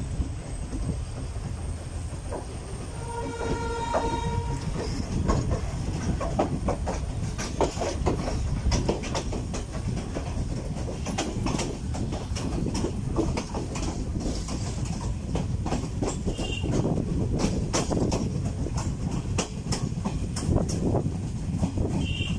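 Passenger train pulling out and gathering speed, heard from inside a carriage. A single horn blast of about a second and a half sounds a few seconds in, then the wheels clack over rail joints and points.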